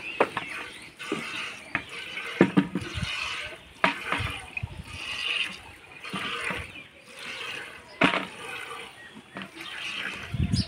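Milk squirting into a pail during hand milking, a hissing squirt about once a second, with a few sharp clicks.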